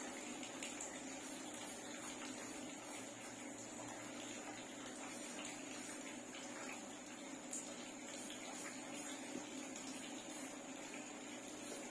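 Steady low hiss of room noise with a faint hum, under soft scratching of a charcoal pencil drawing on paper.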